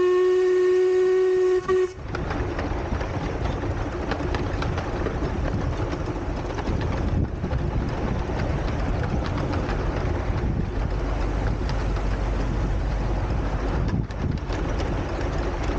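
A miniature steam locomotive's whistle sounds one long, steady note that cuts off about two seconds in. Then the 12¼-inch gauge train runs on with a steady rumble.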